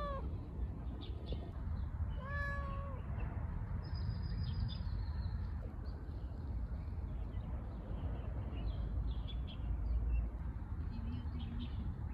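A tabby-and-white cat meows: the falling tail of one meow at the very start, then one short meow about two seconds in. A steady low rumble and faint high chirps run underneath.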